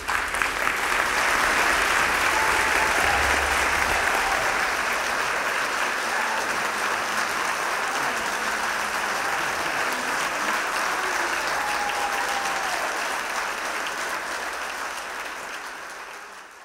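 Audience applauding steadily. The applause tapers off near the end, then cuts off suddenly.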